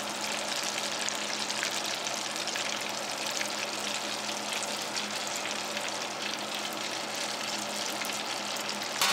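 Breaded potato boxty patties deep-frying in a saucepan of hot oil: a steady crackling sizzle. A single sharp click sounds just before the end.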